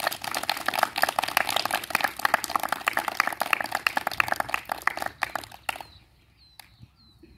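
A group of people clapping: dense, quick hand claps that stop about six seconds in.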